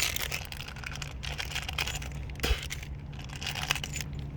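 Plastic parts bag from a locking-hub kit crinkling as it is handled, with one sharp knock about two and a half seconds in.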